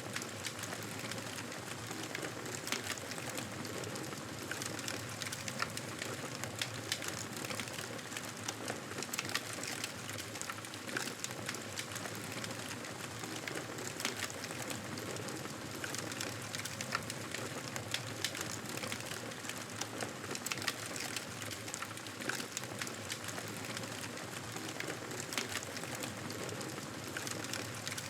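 Wood fire crackling in a fireplace: a steady hiss with frequent small pops and snaps.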